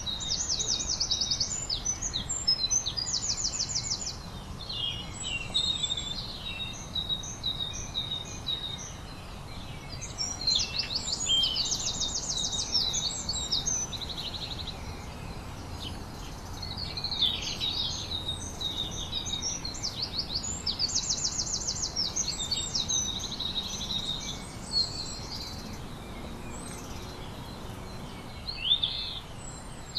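Several songbirds singing and chirping, with repeated fast high trills and short calls overlapping, thinning out briefly near the end, over a low steady background rumble.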